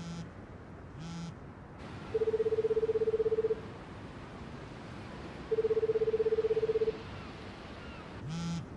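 Telephone ringback tone heard down the line from a Japanese mobile phone: two low, fluttering buzzes, each about a second and a half long and about two seconds apart. It signals that the called phone is ringing and has not yet been answered.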